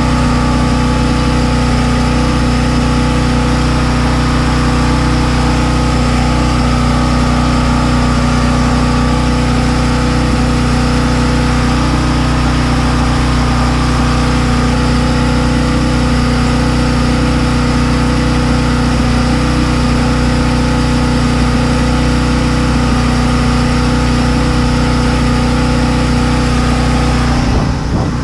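An engine running steadily at idle, a loud, unchanging hum with a low drone.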